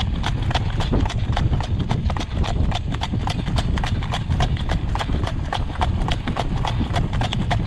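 Harness horse's hooves clip-clopping on a gravel road at a steady jogging trot, a quick even beat of several footfalls a second, over a steady low rumble.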